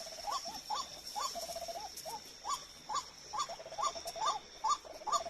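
White-breasted waterhen calling, a rapid run of short rising-and-falling notes, about two to three a second. A steady high insect trill runs behind it.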